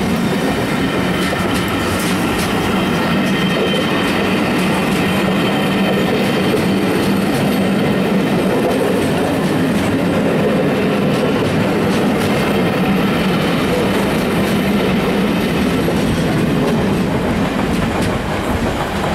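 A rake of Pullman coaches rolling past at speed: a steady heavy rumble of steel wheels on the rails, with clicks as the wheels cross rail joints. The noise eases slightly near the end as the last coach goes by.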